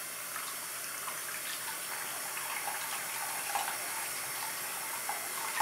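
Hot water running from a bathroom sink tap into the basin, a steady rushing hiss.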